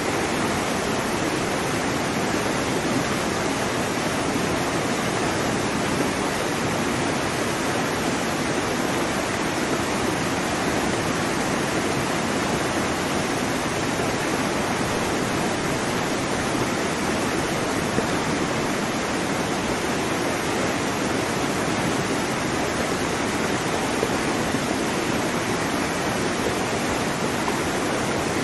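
A steady, even rush of water noise with no rise and fall of separate breaking waves.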